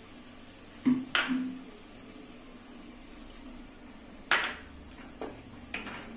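A handful of sharp clinks and knocks as a glass tumbler is handled and a wooden spatula strikes a nonstick kadai, two close together about a second in and the loudest a little after four seconds. Under them runs a faint steady sizzle of spice paste frying.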